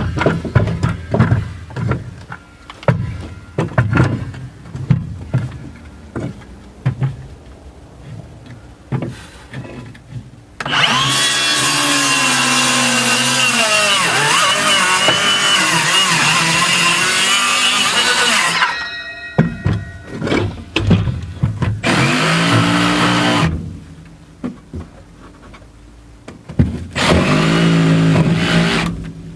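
Irregular metallic knocks and clanks of hand tools, then a motor-driven machine running loudly for about eight seconds with its pitch wavering under load, followed by two shorter runs near the end.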